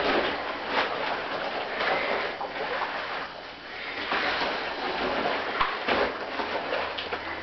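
Latex rubber rubbing and squeaking under rubber-gloved hands on an inflated latex suit, in irregular scratchy swells.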